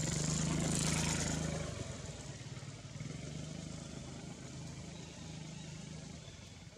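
Motor vehicle engine running, loudest in the first second and a half and then fading to a lower steady hum.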